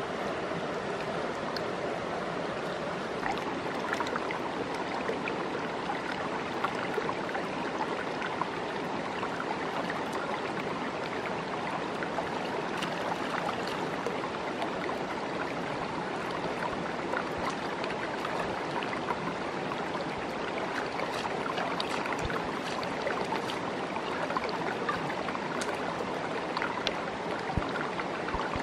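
Shallow rocky stream flowing steadily, with scattered small clicks and splashes from hands working in the water.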